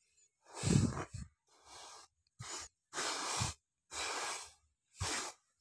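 A hand scraping and sweeping sand off a buried plastic toy in about six short swishes, with gaps between the strokes.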